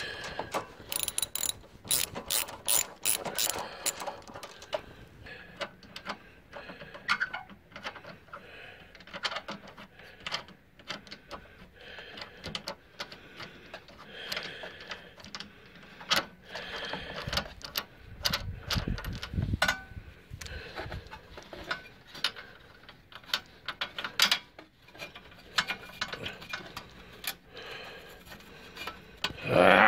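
Hand ratchet clicking as bolts are worked loose on a snow blower's small engine: a quick run of ratchet clicks for the first few seconds, then scattered clicks and clinks of the socket on metal. A brief low rumble comes a little past the middle.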